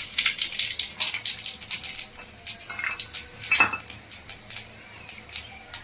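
Mustard seeds spluttering in hot cooking oil in a pan: a dense, irregular run of sharp crackling pops.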